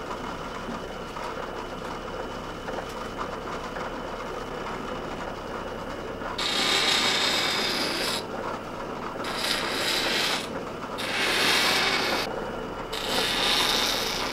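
Motor-driven milling spindle (Pliestbock) running with a steady hum, then a deer-antler knife-handle blank pressed against the spinning cutter four times, each a rasping cut of one to two seconds. The ends of the antler blank are being milled down so that a metal band and a metal cap can be fitted.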